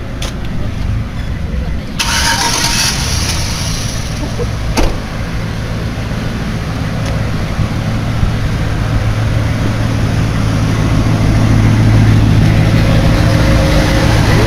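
Car engines running close by: a low, steady engine hum that grows louder over the second half, with a short burst of hiss about two seconds in and a single sharp click near five seconds.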